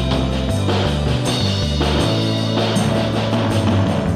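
Rock music with drums, bass and guitar at a steady beat.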